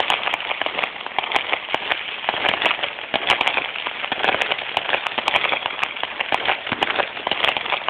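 Fireworks crackling: a dense, continuous run of rapid small pops, with sharper pops scattered through it.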